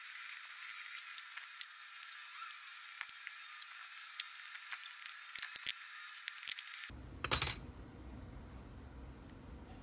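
A 3D-printed plastic part being cleaned up with a needle file and tweezers: faint scraping with scattered small clicks. About seven seconds in comes a short, loud crack, the printed part cracking.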